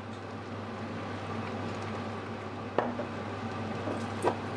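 Noodles and vegetables sizzling in a stainless-steel wok as they are stir-fried with a spoon, with two sharp knocks of the spoon against the pan, one a little past the middle and one near the end.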